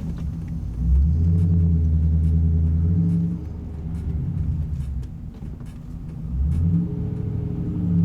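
Pontiac GTO's LS2 V8 exhaust, through a Spintech 2.5-inch stainless system with Kooks long-tube headers, droning inside the cabin while driving. It gets louder about a second in as the throttle is opened, holds steady, eases off after about three seconds, then swells again near the end.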